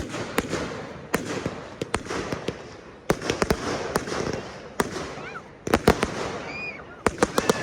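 Fireworks display: a steady run of sharp bangs over crackling, with tight clusters of bangs just before 6 seconds and again at about 7 seconds.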